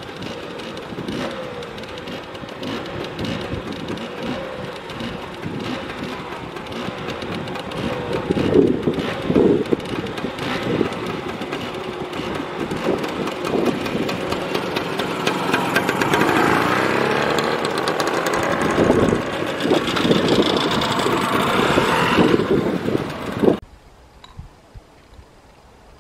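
Two small two-stroke scooter engines, a 1961 WFM Osa M50 and a 1984 Vespa PK 90, running at low speed with uneven revving, growing louder as they come closer. The sound cuts off suddenly near the end.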